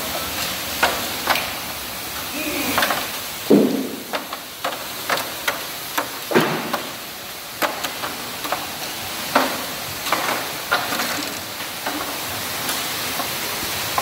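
Oyster washing machine running: a steady hiss of water spray under an irregular clatter of oyster shells knocking against steel and each other, with heavier knocks about three and a half and six seconds in.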